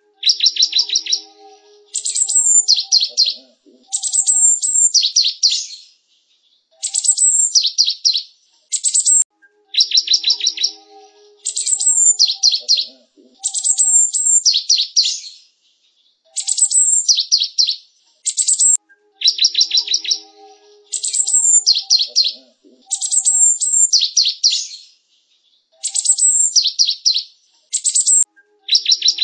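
Java sparrow singing: phrases of rapid clicking notes and high chirps, broken by short pauses, with the same sequence repeating about every ten seconds.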